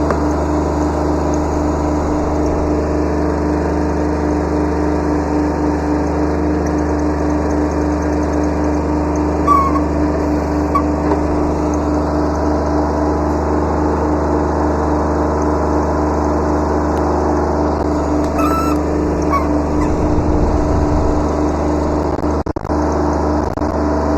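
Kubota B7100 subcompact tractor's three-cylinder diesel engine running steadily, with two brief high squeaks about ten and eighteen seconds in.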